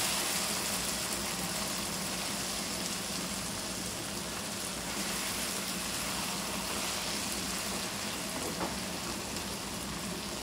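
Okra with onion and tomato frying in a wok, a steady sizzle as a spatula stirs the dry spices through. There is a light tap about eight seconds in.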